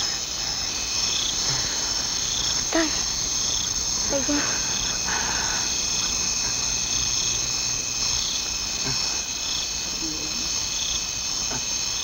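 Night chorus of crickets: a steady high trill with a chirp repeating about once a second. A few brief low calls with bending pitch sound over it, around three, four and ten seconds in.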